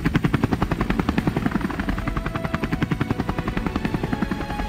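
Helicopter main rotor blades chopping steadily in flight, a fast, even train of pulses.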